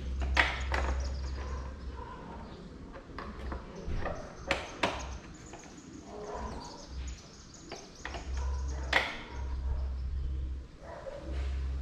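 Plastic seat cowl on a motorcycle tail clicking and knocking as it is pressed and worked onto the seat area: a few sharp clicks spread out, over a low rumble. It does not latch into place.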